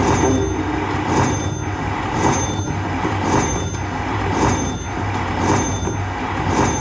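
Slot machine bonus-round sound: a bright hit repeats about once a second over a steady low drone as the win meter counts up while prize values are collected.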